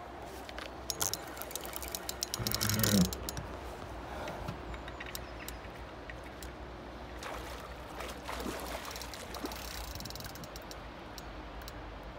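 Fishing reel clicking in quick runs while a strong salmon is played on the rod, with a louder knock-and-rumble of handling about three seconds in and more clicking near the end, over a low steady rumble.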